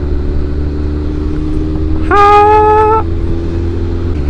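A 2004 Suzuki GSX-R600's inline-four engine running steadily under way, with wind rush. About two seconds in, a loud single-tone horn sounds for about a second, then stops.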